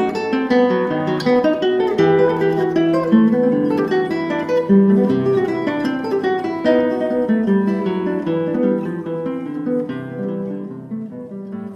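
Background acoustic guitar music with plucked notes, fading out near the end.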